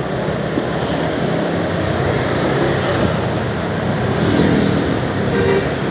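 Steady rumble of vehicle engines and road noise in traffic.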